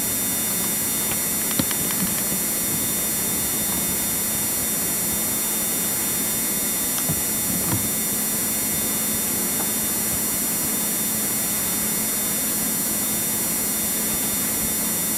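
Steady hiss and hum of an old VHS camcorder recording, with a few faint clicks about a second and a half in and again around seven to eight seconds.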